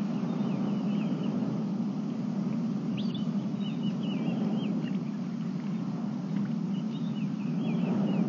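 Wild birds calling in short, chirpy phrases several times, over a steady low rumble.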